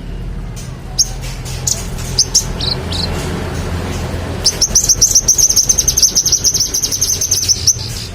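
A manggaran songbird singing: scattered short, high chirps, then from about halfway through a fast, even, high trill of rapid repeated notes lasting about three seconds.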